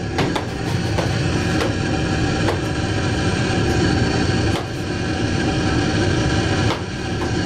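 Steady din of arcade game machines, with a few scattered knocks.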